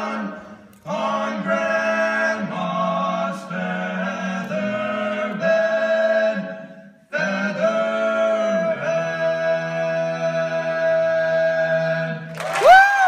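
Male barbershop quartet singing a cappella in close harmony, holding chords, with a brief break midway and then a long sustained final chord. The chord cuts off near the end and a single whoop from the audience rises and falls.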